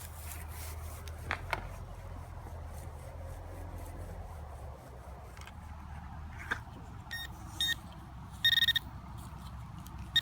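Metal detector beeping on a target: two short high beeps in the last few seconds, with a longer one starting at the very end, over a low rumble of handling and a couple of clicks.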